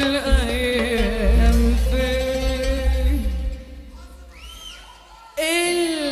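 Live Arabic song: a woman singing into a microphone over double bass and hand drums. About three and a half seconds in, the music drops to a quiet passage with a brief rising-and-falling tone. The voice and band come back in loudly near the end.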